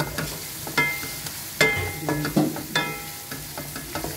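A spatula stirring potato chunks and onion-spice masala in a non-stick pan while they fry. Several sharp knocks against the pan, roughly one a second, each rings briefly, over a steady sizzle.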